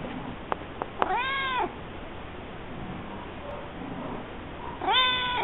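Domestic cat meowing twice: a short arched meow about a second in and a rising, held meow near the end, with a few sharp clicks early on.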